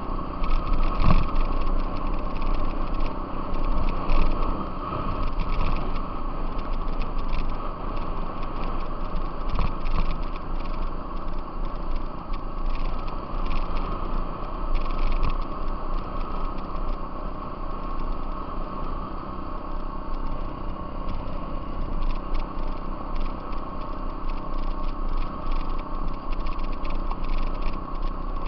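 Off-road vehicle engine running steadily under way on a gravel trail, with frequent small knocks and rattles over the rough surface.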